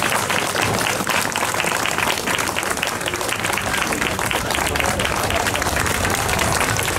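A crowd clapping continuously, many hands at once, with some voices mixed in.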